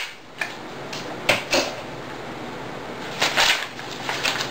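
A yellow paper mailer envelope being cut and torn open by hand: a few short rips and rustles of paper, the longest about three seconds in.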